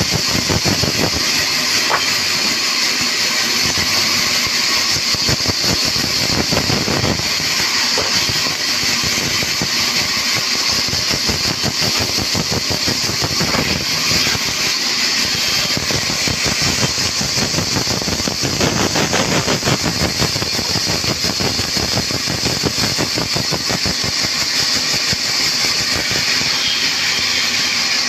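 Large vertical band saw running while a log is fed through its blade: a steady, loud machine noise with a constant high-pitched hiss.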